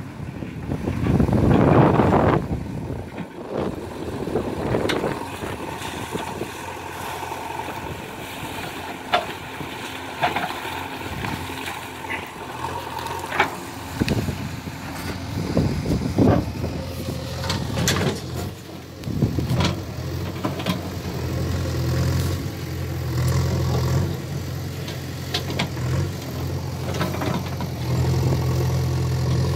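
JCB 3DX backhoe loader's diesel engine running steadily as the backhoe digs, with scattered sharp clanks from the bucket and arm and a louder surge a second or two in.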